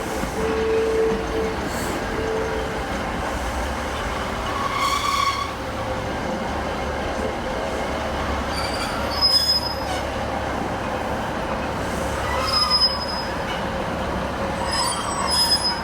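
Class 156 diesel multiple unit running into the platform to stop over a steady rumble. Its wheels squeal sharply and high-pitched several times, called very squeaky.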